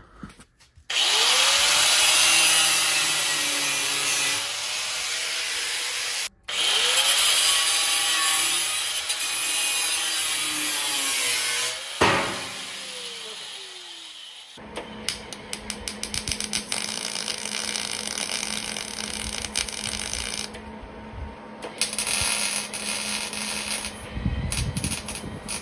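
Angle grinder working on steel, its pitch dipping and recovering under load, cut off briefly once. About halfway through it is released and spins down with a falling whine. Then comes a quieter steady hum with rapid crackling.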